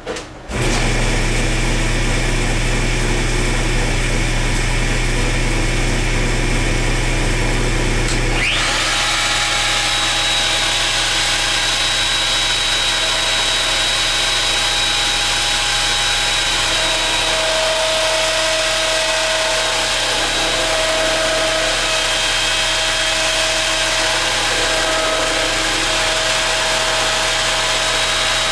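A motor starts about half a second in with a steady low hum. About eight seconds in, a router spins up with a rising whine and then runs steadily at a high pitch, cutting a rough green spruce 4x4 post on a homemade router lathe copier.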